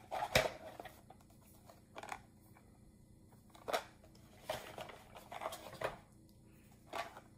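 Plastic drill bit cases and the steel bits in them being handled: scattered light clicks and clatters, a few separate knocks with a short cluster in the second half.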